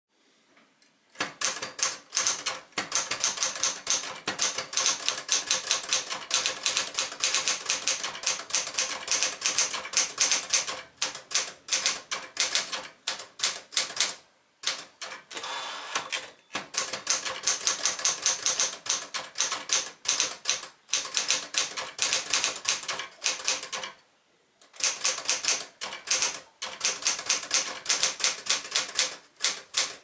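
Sears Citation manual typewriter (a Smith-Corona Galaxie) being typed on at a brisk pace: a rapid, uneven run of sharp keystroke clacks as the typebars strike the platen. It starts about a second in and breaks off briefly twice.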